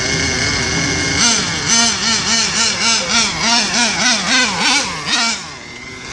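Engine of a fast toy car running, then revved in quick repeated blips, the pitch rising and falling about three times a second for around four seconds before it drops back and quietens near the end.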